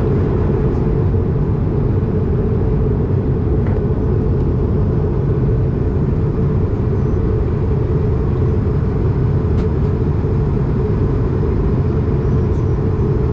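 Steady cabin noise of an Airbus A220 in flight on its way in to land, heard from a window seat beside its wing-mounted Pratt & Whitney PW1500G geared turbofan. It is a low, even rush of engine and airflow.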